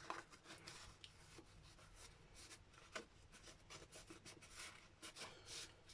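Faint rustling and rubbing of paper and card being handled, with scattered light ticks and one slightly louder tap about three seconds in.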